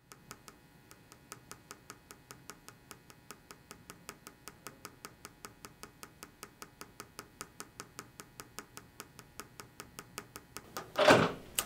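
Fingers tapping on a tabletop in a steady rhythm, about three taps a second, over a faint hum. A single loud thud near the end.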